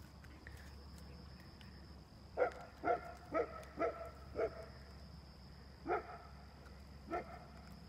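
Repeated animal calls: a run of five short calls about half a second apart starting about two seconds in, then two single calls near the end.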